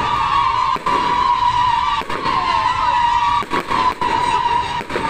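Fireworks rockets rising with a continuous high whistle, several overlapping, over a noisy hiss.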